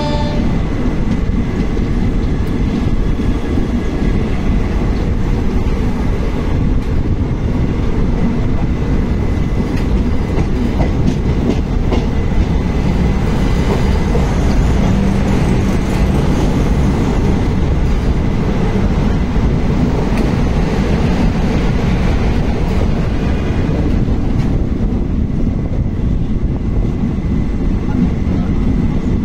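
Passenger trains running side by side on adjacent tracks, heard from an open coach doorway: a loud, steady rumble of wheels on rails with a clickety-clack rattle over the track.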